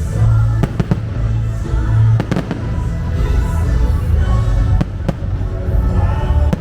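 Fireworks going off in several sharp bangs over the show's music soundtrack, which has a heavy bass.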